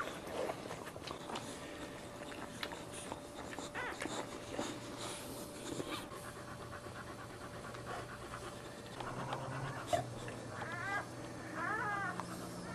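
A whelping dog panting rapidly in labour, with a few short, high whimpering cries near the end.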